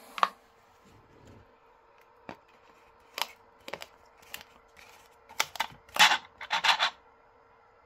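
Sharp plastic clicks and crackles as an empty plastic soda bottle is pushed upside down into a 3D-printed plastic stand and turned on the printer bed, a few single clicks at first, then a dense run of crackling near the end. A faint steady hum runs underneath.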